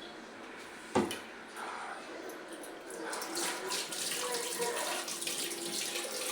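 A sharp knock about a second in, then water running from a kitchen tap into a sink, growing louder after about three seconds.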